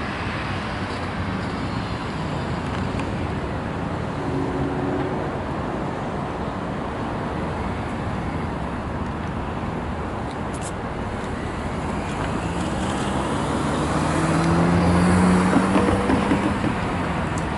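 Steady road traffic noise. About three quarters of the way through, a motor vehicle's engine rises in pitch and grows louder, then fades.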